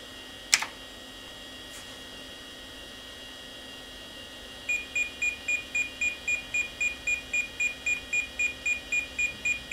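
A single click about half a second in, then from about five seconds in the PC's internal speaker beeps over and over, about three short high-pitched beeps a second, as the Landmark System Speed Test runs on the 386 machine.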